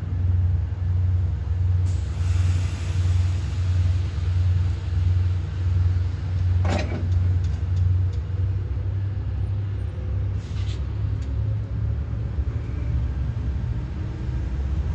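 A train's heavy low rumble, pulsing about once a second and then running more evenly, with a burst of air hiss about two seconds in and a sharp metallic clank near the middle.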